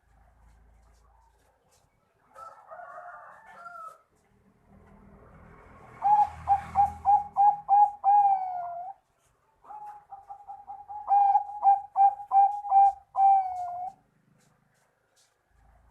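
Bangkok-type zebra dove (perkutut) singing: after a short rougher call, two phrases of rapid staccato coos, each ending in a longer drawn-out note.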